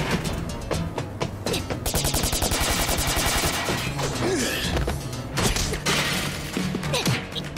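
A rapid burst of automatic fire from an AK-style assault rifle, starting about two seconds in and lasting about a second and a half, over dramatic background music.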